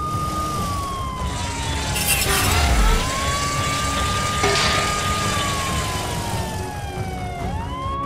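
Cartoon police siren wailing in slow cycles, rising, holding high, then sliding down before rising again, twice, over a steady rumble. A clattering crash with a low thump comes about two to three seconds in.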